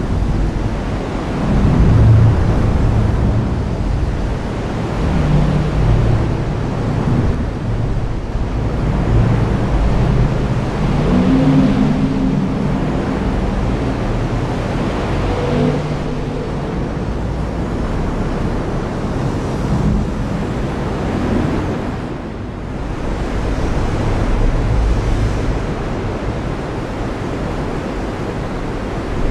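Heavy rain pouring steadily, with low thunder rumbles swelling and fading beneath it.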